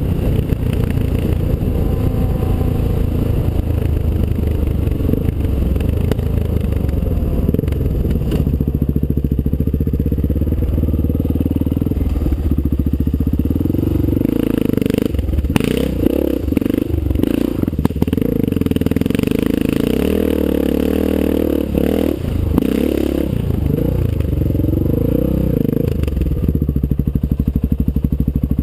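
Honda XR600's single-cylinder four-stroke engine running as the motorcycle is ridden, its engine speed rising and falling repeatedly through the middle stretch. A few sharp knocks come partway through.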